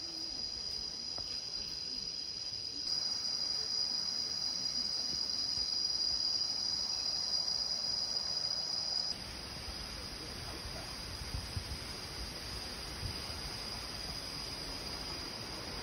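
A steady, high-pitched insect chorus, several close tones held without a break. After about nine seconds the insects grow fainter and an even rush of flowing water from the waterfall and stream comes up beneath them.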